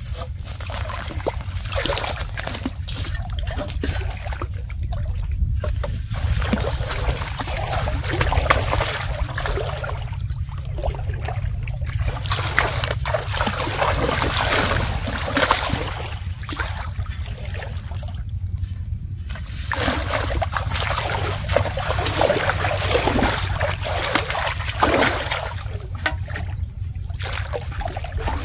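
Shallow pond water splashing, sloshing and pouring in repeated bouts as a large aluminium pot is dipped, swung through it and emptied, with short pauses between bouts. A steady low rumble runs underneath.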